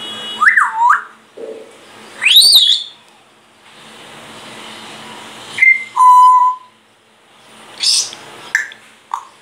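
Grey parrot whistling a string of separate notes: a swooping note about half a second in, a high rising whistle at about two seconds, then a short note falling to a held lower note near the middle, and a few short high squeaks near the end.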